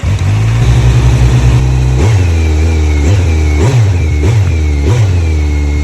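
Car engine just after starting, running fast and settling to idle, then blipped about five times in quick succession before returning to a steady idle.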